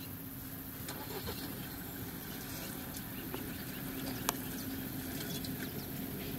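Steady low drone of an idling safari four-wheel-drive vehicle's engine, with faint scattered ticks and chirps and one sharp click about four seconds in.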